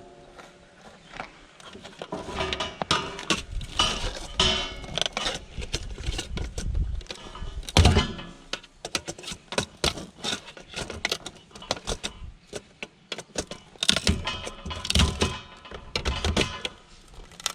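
Irregular clinks, knocks and rattles of metal parts being handled and pried apart while an air conditioning unit is stripped for scrap, with one heavier knock about eight seconds in.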